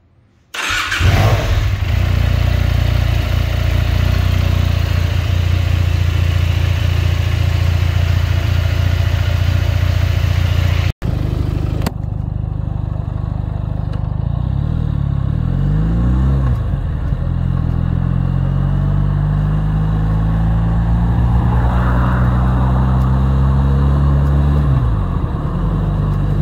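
Benelli 302S parallel-twin engine starting about half a second in and then idling steadily. After a cut about 11 seconds in, the bike is being ridden, its engine note falling and rising again with throttle and gear changes.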